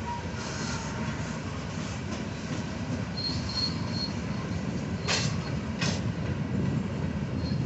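Freight cars of an Arkansas & Missouri Railroad train rolling slowly past with a steady low rumble. A thin, high wheel squeal comes in about three seconds in, and two sharp clacks about five and six seconds in.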